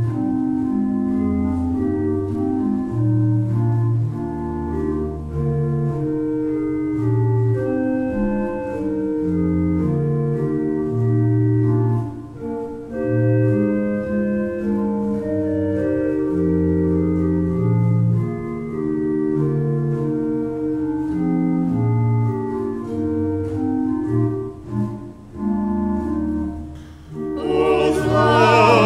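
Organ playing a hymn-like piece in slow, sustained chords over a moving bass line. Near the end a singing voice with strong vibrato comes in over it.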